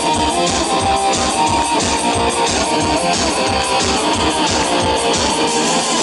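Breton punk rock played live by a full band: distorted electric guitar over a fast, steady beat, with a wind-instrument melody held on top.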